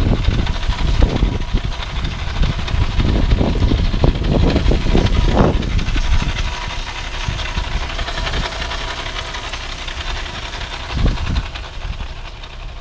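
Irregular grinding and knocking from the front of a 2015 Audi A3 1.8T rolling uphill in Drive with no throttle, over steady road noise. The grinding is heaviest in the first half and eases off in the second.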